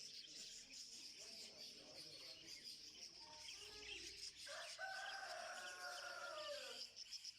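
Dense chirping of many small cage birds. About four and a half seconds in, one long bird call is held for over two seconds and drops in pitch at the end; it is the loudest sound.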